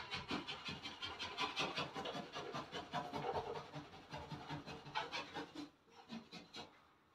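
Hand scraper scraping old wallpaper and coating off a wall in quick repeated scratchy strokes that trail off near the end.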